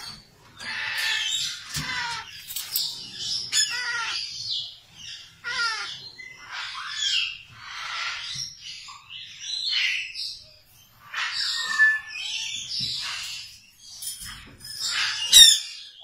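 Parrot chicks squawking over and over: harsh calls about once a second with short pauses, the loudest near the end.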